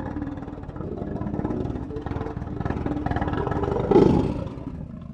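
Lion growling: a deep, rapidly pulsing rumble that builds and swells into a louder roar about four seconds in, then fades.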